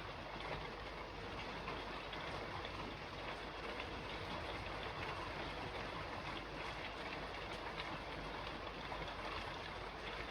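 Steady rain falling on a roof: an even, unbroken hiss with faint scattered drop ticks.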